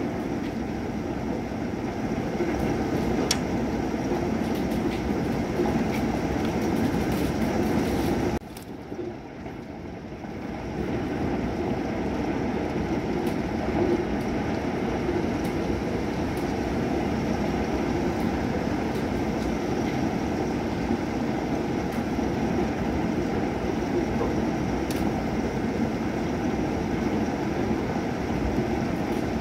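Thunderstorm rain falling steadily in a dense, rumbling wash with scattered sharp drop ticks. It drops away suddenly a little under a third of the way in, then swells back about two seconds later.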